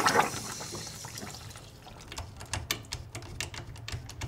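Water rushing out of an underfloor heating manifold's fill and vent port through a hose into a bucket as the manifold depressurises. It fades over the first second or so to a quieter trickle with scattered short drips.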